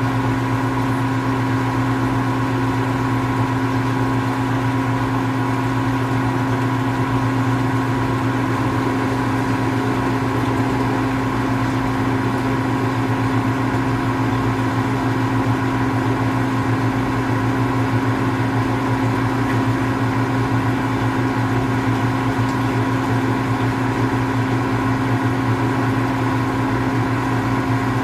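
Steady mechanical hum with several fixed tones, unchanging throughout.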